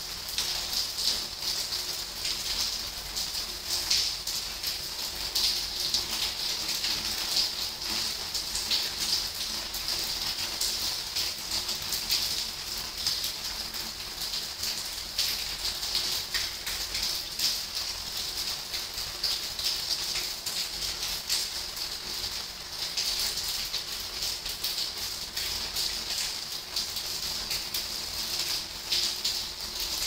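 Steady rainfall, a constant hiss with many individual drops ticking close to the microphone.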